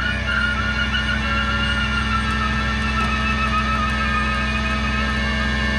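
A vehicle engine idling steadily: a low, even hum with a thin, wavering whine above it that slowly falls in pitch.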